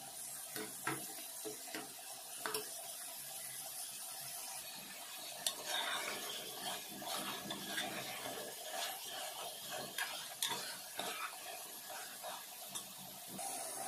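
A utensil stirring and scraping in a pan of frying red Malabar spinach berries, with a light sizzle and scattered clicks against the pan. About five seconds in, a metal spoon stirs beef curry in a steaming pot, and the sizzle and clatter grow denser.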